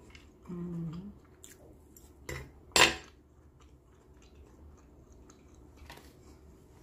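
A metal fork set down on a wooden cutting board: a light tap, then a sharp clatter with a brief metallic ring. Just before it, a short closed-mouth hum from the person eating.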